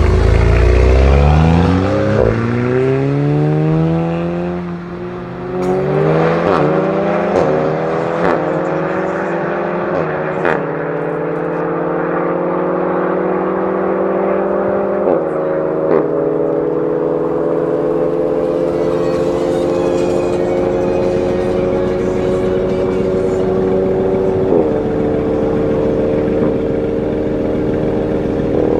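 Volkswagen Golf 7 R's turbocharged 2.0-litre four-cylinder with a REMUS exhaust launching hard and accelerating away through the gears. Its pitch climbs through each gear and drops sharply at each upshift, several times, with a short crack at some of the shifts.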